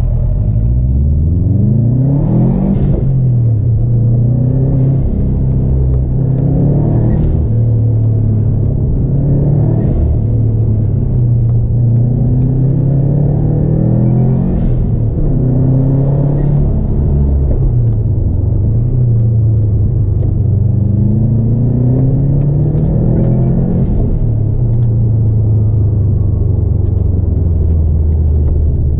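Subaru's flat-four engine heard from inside the cabin, driven hard. It revs up and drops back again and again, its pitch climbing for a few seconds and then falling as the car is worked through the gears.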